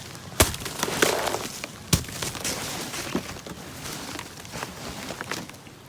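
Irregular crunching and sharp cracks of ice-crusted snow, with two louder cracks about half a second and two seconds in: footsteps breaking through the frozen crust left by freezing rain.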